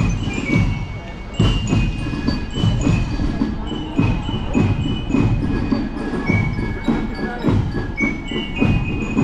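Parade marching band playing: a glockenspiel carries a melody of bright ringing notes over steady drum beats.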